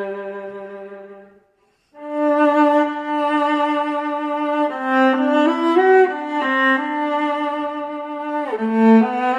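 Solo viola playing a slow melody. A held note fades away in the first second and a half, and after a short pause a new phrase begins with a long held note, then moves on through changing notes with some slides between them.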